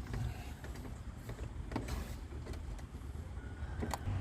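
A few sharp plastic clicks and scrapes as a stuck ignition-coil connector is pressed and pried loose with a screwdriver, over a low steady rumble.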